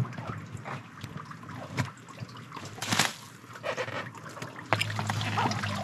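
Water trickling and splashing as wet, freshly harvested aosa seaweed is handled into mesh-lined crates, with scattered knocks and a louder splash about three seconds in. A low steady hum comes in near the end.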